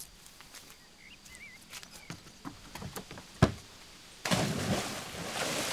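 Footsteps and knocks on wooden dock planks, a sharp thump about three and a half seconds in, then a splash as a person jumps into the river, with water churning for a second or so.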